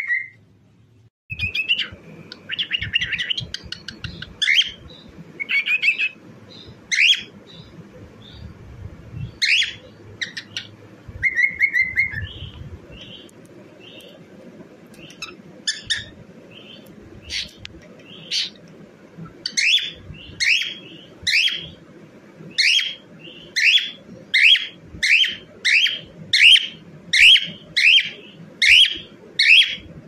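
A cockatiel whistling and chirping: scattered whistled notes and short trills, then in the second half a steady run of short rising chirps, about one and a half a second, growing louder.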